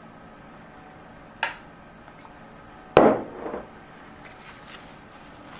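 A glass mug set down on a table: a light tap about a second and a half in, then a louder knock about three seconds in that rings off briefly, with a few faint ticks near the end.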